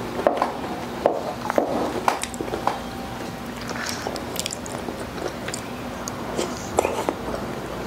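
Close-miked wet chewing and mouth sounds of someone eating goto, soft Filipino rice porridge, with scattered sharp clicks and the occasional scrape of a metal spoon scooping the porridge from a paper cup.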